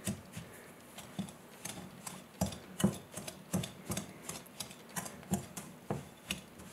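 Wire balloon whisk beating a stiff butter-and-sugar mixture in a glass mixing bowl, its metal wires clinking against the glass in irregular strokes about two or three times a second.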